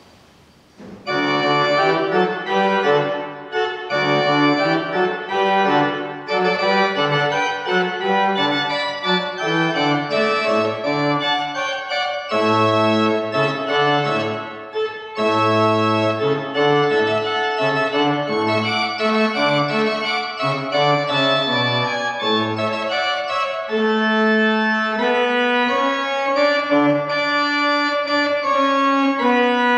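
Church pipe organ starting to play about a second in, sounding full held chords over a moving bass line: the organ postlude after the closing blessing.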